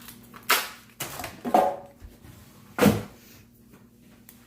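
Packaged cheese and plastic packaging being put into a clear plastic storage container: four sharp plastic knocks and rustles in the first three seconds, the last two the loudest, then quieter handling.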